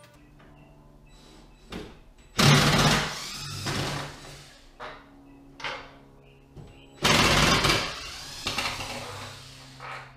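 Workshop gear being shifted and handled: two loud scraping clatters, about two and a half and seven seconds in, each trailing off over a second, with lighter knocks between.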